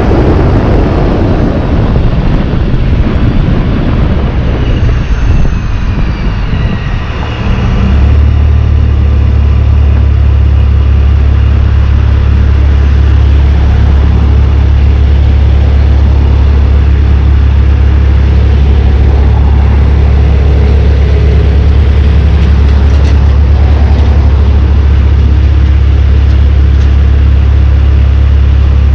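Supercharged 2017 Dodge Charger V6 driving, with a thin high whine falling in pitch in the first several seconds, then a loud, steady low drone from about eight seconds in.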